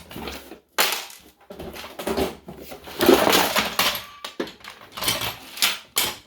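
Loose vintage sewing machine parts clattering and rattling as they are rummaged through and handled, a run of irregular knocks and clinks.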